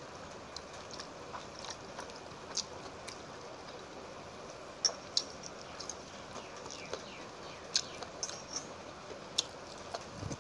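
Eating by hand: scattered soft wet clicks and smacks as water-soaked rice (panta bhat) is mixed with the fingers in a steel bowl and eaten, over a steady low hiss.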